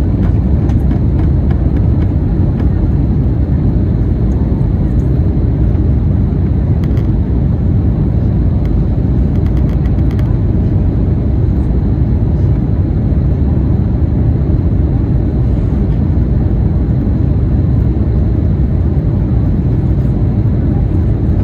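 Airbus A321neo with Pratt & Whitney geared turbofan engines, heard from inside the cabin during the climb after takeoff: engine and airflow noise as a loud, steady, deep rumble.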